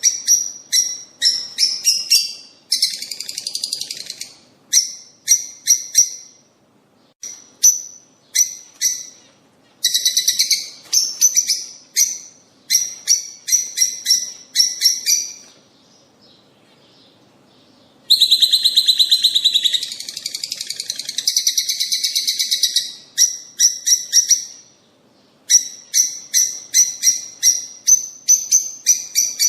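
Songbird singing: runs of sharp, quick chirps alternating with longer buzzing trills, in phrases separated by short pauses. It is a stimulation recording played to caged birds to get them singing.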